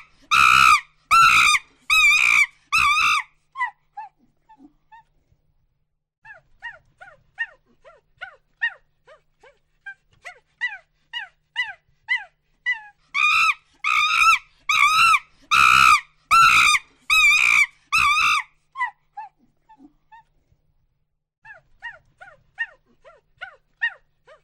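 Monkey hooting: a loud series of pitched hoots, about two a second, that ends about three seconds in. Softer short calls follow, then a second loud bout of hoots builds and fades, and a few quieter calls come near the end.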